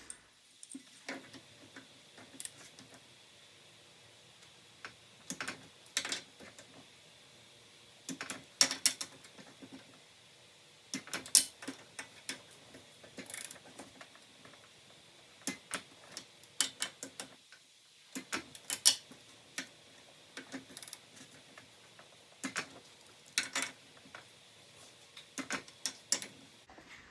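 Click-type torque wrench ratcheting in short runs of rapid clicks, with pauses between, as the cylinder head bolts of a Briggs and Stratton small engine are tightened to 12.5 foot-pounds.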